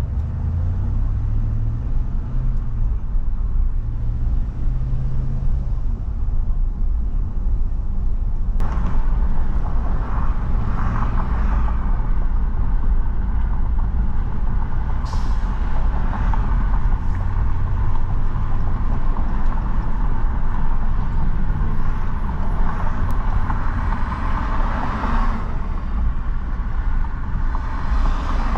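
Engine and road noise inside a moving car: a steady low rumble, joined suddenly about eight and a half seconds in by a louder, brighter hiss of tyres and passing traffic.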